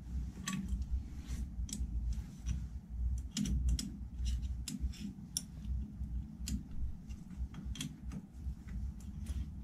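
Irregular light clicks and taps of hand tools and small metal parts being handled while fitting DRO mounting brackets to a lathe, over a low steady rumble.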